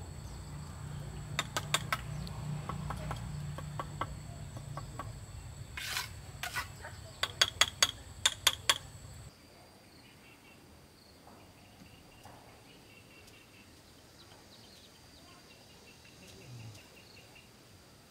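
Sharp clicks and taps of a steel trowel on brick as bricks are set in mortar, a few early on and then a quick run of them near the eight-second mark, over a low hum and steady high insect trilling. About nine seconds in this gives way to a much quieter background with faint insect chirps.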